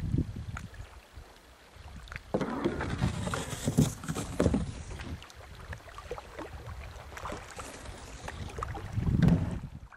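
Kayak paddle strokes splashing and swishing through the lake water, with gusts of wind rumbling on the microphone.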